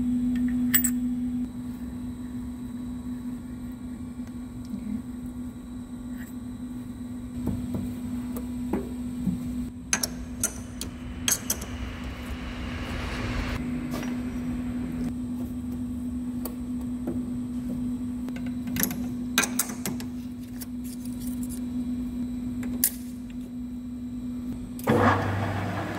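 Scattered metallic clicks and clunks as steel parts and a tool holder are handled and fitted on a metal lathe's tool post, over a steady machine hum. About a second before the end the lathe spindle starts up and runs.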